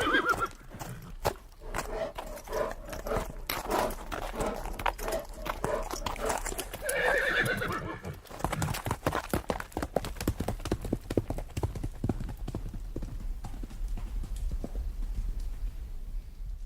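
Horses' hooves clopping over a hard surface, with a horse whinnying at the start and again about seven seconds in.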